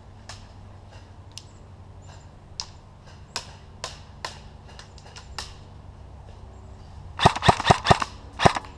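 Airsoft guns firing: scattered single sharp snaps for the first few seconds, then a loud rapid burst of about six shots near the end, with one more shot just after.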